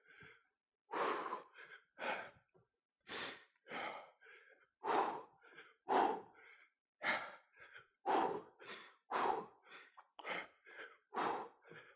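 A man breathing hard from exertion: forceful exhalations about once a second, with smaller breaths in between.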